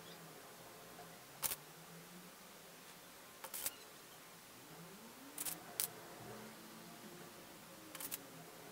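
Faint, sharp little clicks from handling pins while pinning pieces of stretch fabric together by hand: four short clicks or quick clusters about two seconds apart, over a faint low hum.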